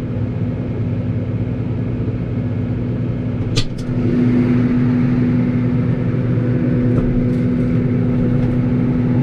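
Tractor engine running steadily. A click comes about three and a half seconds in, after which the engine runs a little louder.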